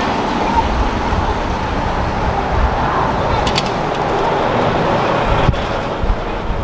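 Street traffic: cars and a tour coach running past, a steady rumble of engine and road noise, with a brief high chirp about halfway through.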